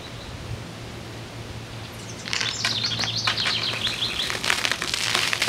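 Coke-and-Mentos eruption from a 2-litre Coca-Cola bottle: a fizzing jet of foaming cola shooting up and spattering back down onto the tabletop. It starts suddenly about two seconds in and is loudest near the end.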